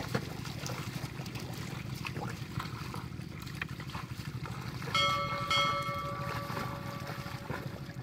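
Ox-drawn ploughing in a flooded paddy field: faint splashes and squelches of hooves and plough in wet mud over a steady low rumble. About five seconds in, a bell rings twice, half a second apart, and fades over about two seconds.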